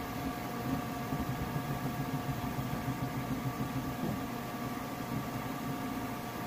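FlashForge Adventurer 5M Pro 3D printer running mid-print: a steady whir with a couple of steady whining tones over an uneven low rumble, its fans and motors working as the print head makes small moves.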